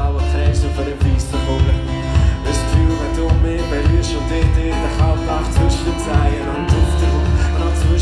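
A live band playing a song with brass, a heavy bass and a steady drum beat, heard from among the audience.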